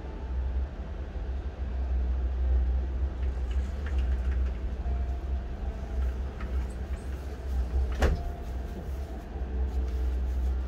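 A steady low background rumble with faint held tones, and a single sharp knock about eight seconds in.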